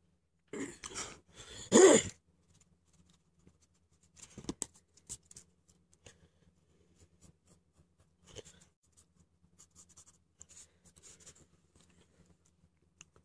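Pencil scratching on paper in short, scattered strokes. A louder scrape and rustle lasting about a second and a half, near the start, is the loudest sound.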